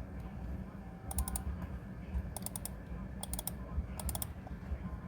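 Computer keyboard keys clicking in four short quick bursts of three or four strokes each, over a low steady hum.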